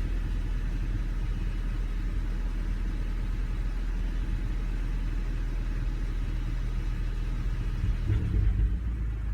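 Volkswagen Golf R engine idling unevenly, with irregular stumbles that are the sign of a misfire. A few louder thumps come near the end.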